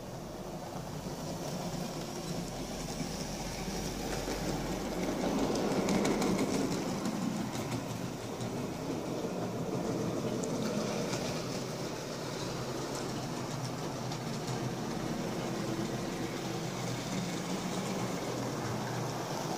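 Hornby OO gauge Stanier Class 4P 2-6-4T model tank locomotive running on the track: a steady motor whirr and wheel rumble with faint clicking over the rail joints, growing louder to a peak about six seconds in.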